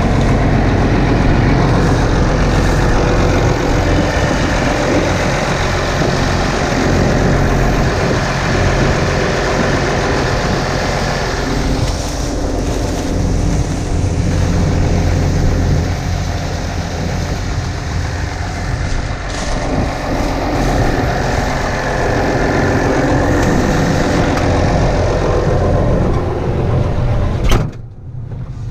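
Large farm machine's engine running steadily with a continuous low drone. Near the end it cuts off abruptly with a sharp click.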